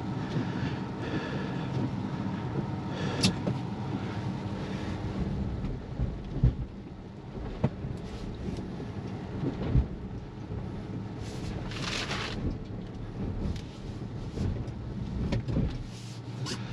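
Low rumble and crunching of a Tesla Model Y's tyres on snow-covered gravel, heard from inside the cabin, with scattered knocks and thumps as the car struggles to climb a snowy slope.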